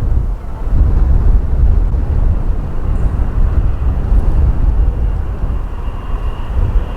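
Jet airliner on landing approach passing low overhead: a loud, deep engine rumble, with a faint high turbine whine coming in over the second half.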